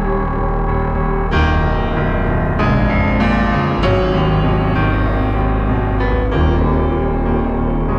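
Background music of sustained keyboard chords, the harmony changing a few times.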